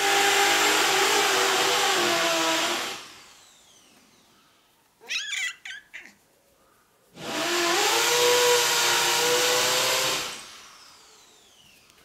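Electric drill boring into a wall in two runs of about three seconds each. Its pitch dips under load, then falls away in a whine as the motor spins down after each run. Between the runs there is a short cat meow.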